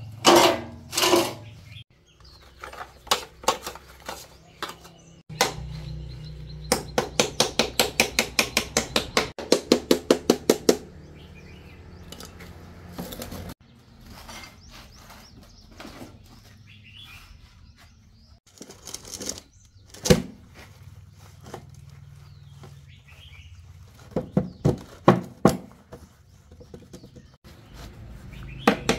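Steel and plastic concrete-casting mold parts being handled and taken apart by hand: scattered clanks and knocks, with a quick, even run of about five taps a second lasting about four seconds, and a few sharp knocks later on.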